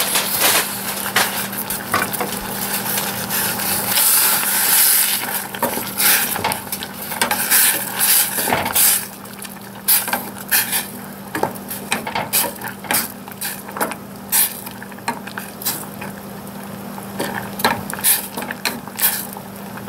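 Spinach sizzling and steaming in a stainless steel saucepan as it is stirred with a wooden spatula. The hiss is strongest in the first half; after that the spatula knocks against the pan many times.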